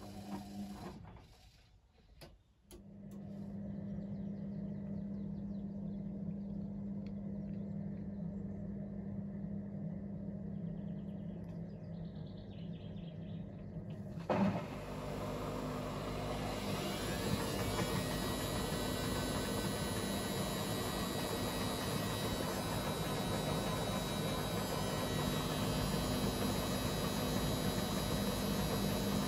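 Atlant 45Y82 front-loading washing machine going into its first spin: after a few clicks a steady hum sets in while the water drains, then about halfway through a thump and the drum motor winds up with a rising whine into a steady fast spin at up to 400 rpm.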